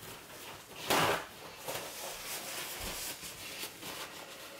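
Paper towel rustling as it wipes the edges of a silicone muffin mould, with one short, louder rustle about a second in, then quieter rubbing and small clicks.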